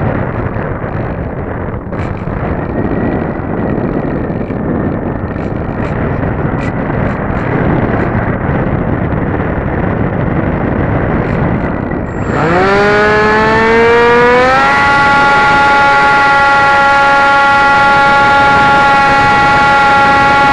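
Wind rushing over the onboard camera of a Dynam Hawk Sky electric RC plane. About twelve seconds in, its brushless motor and propeller spin up with a rising whine, which then holds at a steady pitch.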